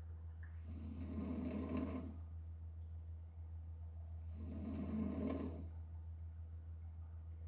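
A woman snoring hard in her sleep with her mouth open: two long snores, about three seconds apart, over a steady low hum.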